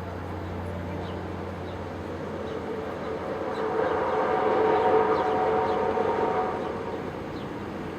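A strange, unexplained droning: several steady tones sounding together swell up about four seconds in and die back again by about seven seconds.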